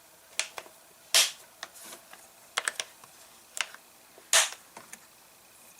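Hard plastic clicks and knocks of a chainsaw's cover being fitted back on, with two louder snaps about a second in and just past four seconds, and several lighter clicks between.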